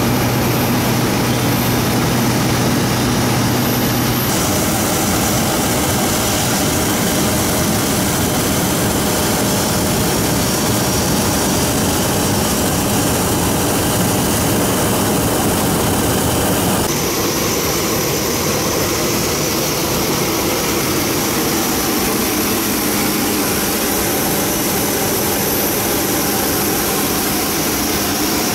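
Steady jet aircraft turbine noise of an airport ramp: a loud, even rushing whine with faint steady tones. Its tone changes abruptly about four seconds in and again about seventeen seconds in.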